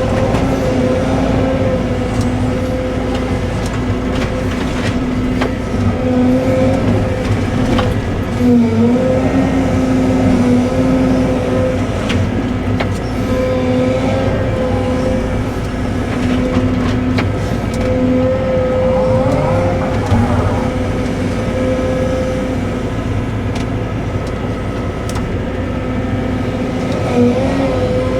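Cat 313 excavator's diesel engine running steadily at working speed with a constant hum. Its pitch dips briefly twice under hydraulic load, about a third of the way in and near the end, with scattered knocks of debris.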